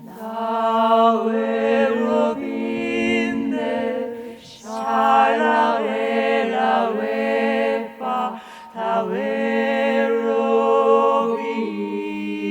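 A cappella vocal ensemble singing without words: low voices hold a steady drone while a higher voice sings a wavering, bending melody above it. The singing comes in three phrases, with short breaks about 4.5 and 8.5 seconds in.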